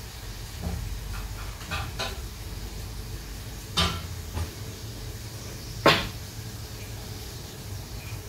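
Kitchen work at the stove: a few sharp knocks and clinks of cookware and utensils being handled, the loudest about four and six seconds in, over a low steady hum.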